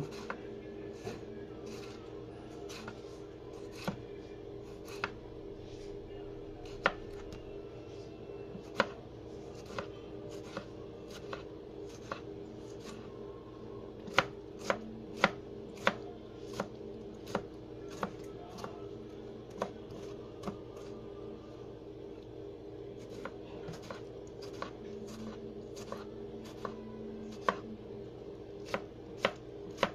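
Kitchen knife cutting a tomato on a plastic cutting board: short, sharp knocks of the blade against the board about once or twice a second, as the tomato is sliced and then finely diced. A steady low hum runs underneath.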